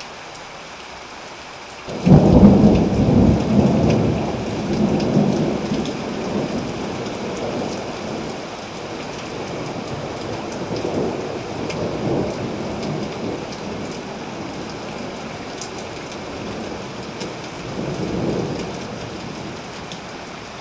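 Steady rain falling, then about two seconds in a sudden loud thunderclap that rumbles on and slowly fades over several seconds. Further, weaker rolls of thunder come a few seconds before the end and again near it.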